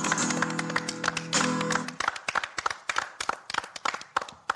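Guitar music with held notes that ends about two seconds in, followed by hand clapping that thins out and fades away.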